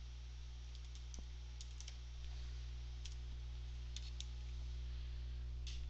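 Computer keyboard being typed on: scattered light key clicks, singly and in short runs, over a steady low hum.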